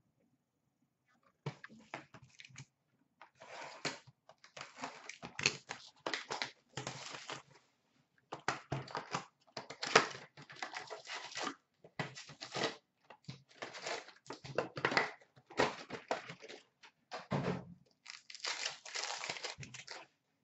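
Packs of 2018-19 Upper Deck SP Authentic hockey cards being torn open by hand, the wrappers crinkling in a long string of short rustling bursts that starts about a second and a half in.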